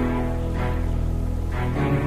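Background music: sustained chords over a soft beat with a pulse about every half second.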